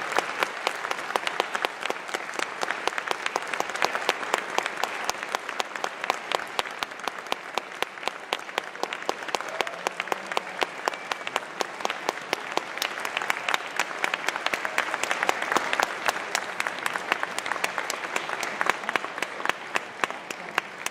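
Audience applauding: dense, steady clapping that swells a little about fifteen seconds in.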